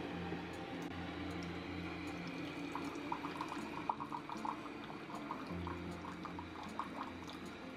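Coway CHP-7200N direct-flow water purifier pouring a thin stream of water into a ceramic mug. The water splashes and bubbles with quick high plinks from about three seconds in.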